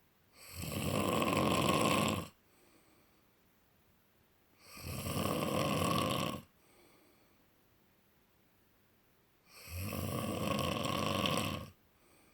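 Snoring: three loud snores, each about two seconds long and about five seconds apart, with a faint breath after each one.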